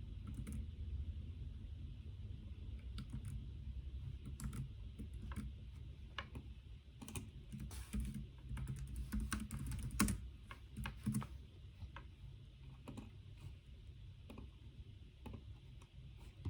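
Typing on a computer keyboard: keystrokes in quick runs, busiest around the middle and thinning out near the end, over a steady low hum.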